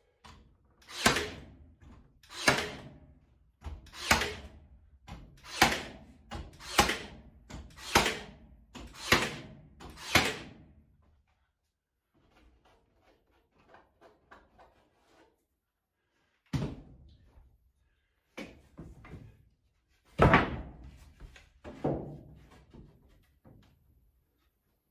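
Cordless nail gun firing eight nails into timber wall boards, one sharp shot every second or so, each with a short ringing tail. After a pause with faint handling clicks, four more sharp knocks about two seconds apart.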